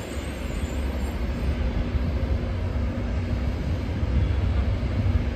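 Steady low rumble of the Doctor Yellow Shinkansen inspection train at the station, with a faint steady hum running through it from about a second in.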